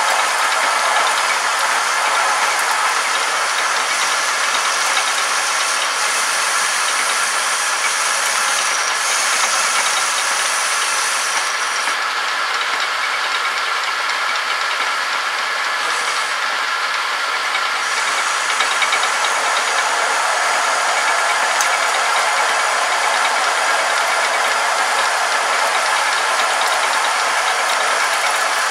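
Homemade metal lathe turning a metal shaft, the cutter taking a deep roughing cut of about 2 mm in one pass with a steady, even cutting sound. There is no chatter, a sign that the cut is rigid and clean this close to the chuck.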